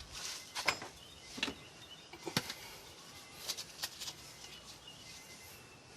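A few scattered, light clicks and knocks of handling noise, spaced irregularly over a quiet background.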